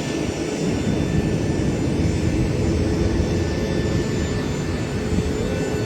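Steady jet airliner engine noise: a loud, even rumble with a few faint steady tones on top.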